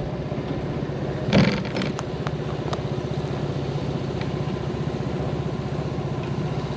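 Kymco Carry 125 scooter's 125 cc single-cylinder four-stroke engine running steadily, its firing heard as a rapid even pulse. A brief louder bump about a second and a half in, followed by a few light clicks.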